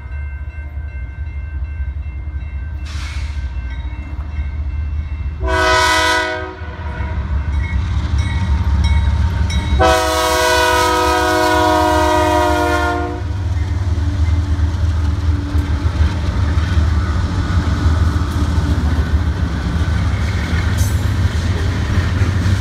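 BNSF freight train's diesel locomotive horn sounding for the grade crossing: a faint blast about three seconds in, a short loud blast around six seconds, then a long blast of about three seconds. Under it the diesel locomotives and freight cars rumble past steadily, growing louder and clattering over the rails.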